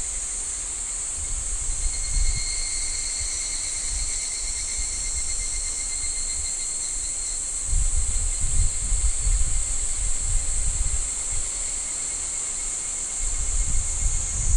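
Steady high-pitched drone of an insect chorus, with a faster pulsing trill joining about two seconds in. Gusts of wind buffet the microphone with a low rumble, strongest from about eight seconds in and again near the end.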